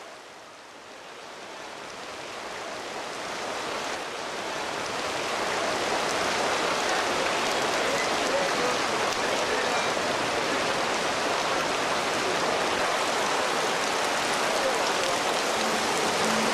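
Heavy rain pouring down, growing louder over the first several seconds and then holding steady.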